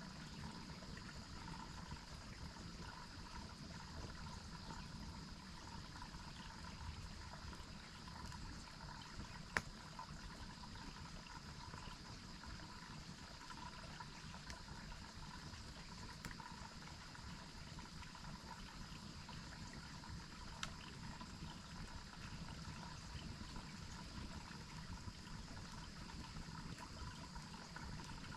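Waterfall and stream water running steadily and faintly, with three sharp pops from the campfire spread through it, the loudest about ten seconds in.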